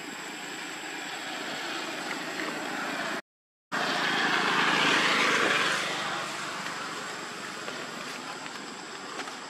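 A motorbike passing on the road: its sound swells up about four seconds in and fades away by about six seconds, over a steady outdoor hiss. The sound cuts out completely for a moment just before the swell.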